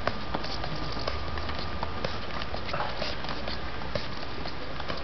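Irregular slaps and knocks of many karate students striking forearms together in a paired arm-conditioning drill, several pairs at once so that the impacts overlap unevenly.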